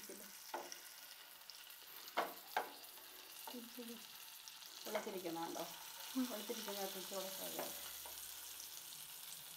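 Chicken pieces sizzling in hot oil and butter in a frying pan, with a wooden spatula scraping and knocking against the pan several times as the fried pieces are lifted out.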